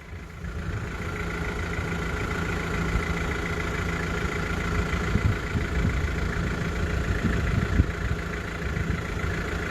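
An engine idling steadily, with a low rumble and a faint steady hum.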